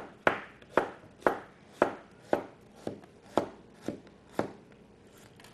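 Knife chopping an onion on a cutting board: about ten even strokes, roughly two a second, stopping near the end.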